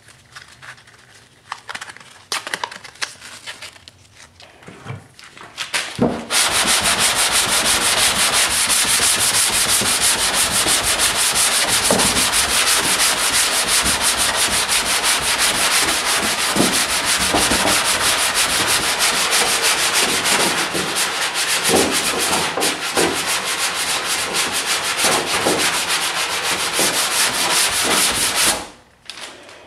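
Hand block sanding of a painted car door with 120-grit sandpaper: after a few light scrapes and taps, the block is rubbed rapidly back and forth in a steady, loud rasp, then stops abruptly near the end.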